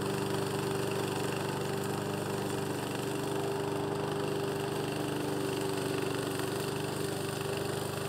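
Gas engine of a remote-control slope mower running steadily at an unchanging pitch as the mower climbs a steep, weedy slope.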